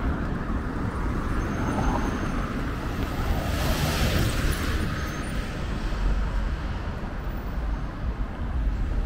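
City street traffic: a steady rumble of passing cars, with a louder hiss swelling and fading about four seconds in as a vehicle passes closer.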